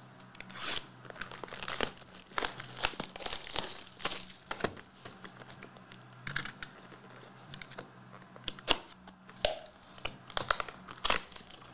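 Plastic shrink-wrap crinkling and tearing as a trading-card box is unwrapped by hand, in an irregular string of crackles and snaps.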